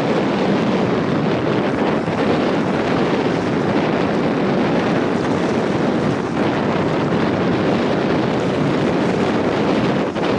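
Strong wind buffeting the microphone in a steady, loud rush, with no clear engine note standing out.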